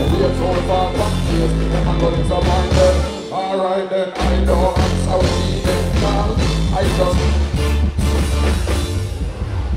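Live band music with a heavy bass line and drums, and a vocalist over it. The bass drops out for about a second roughly three seconds in, then comes back.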